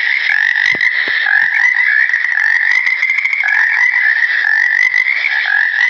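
Many frogs calling at once in a steady, unbroken chorus, the overlapping calls pulsing rapidly.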